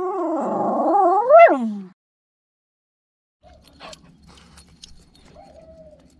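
A dog giving a long, wavering cry, its pitch rising and falling, ending with a sharp rise and a drop about two seconds in. A short, fainter whine follows a few seconds later.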